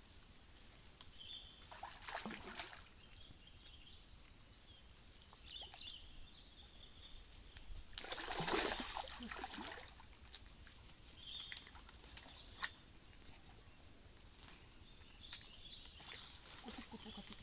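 Steady high-pitched insect drone, with two sloshes of water, the longer about eight seconds in, and scattered light clicks.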